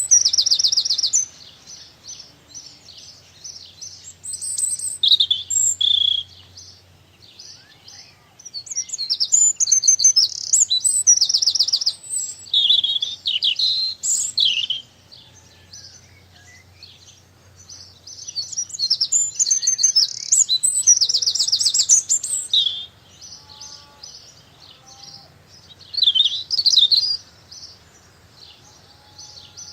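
Small garden birds singing and chirping in high-pitched phrases of a few seconds, with fast trills, separated by short pauses.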